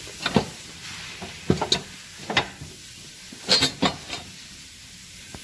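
Irregular short knocks and clicks of hand tools and bolts being handled while bolts are removed from a mower deck, over a faint steady hiss. The loudest group of clicks comes about three and a half seconds in.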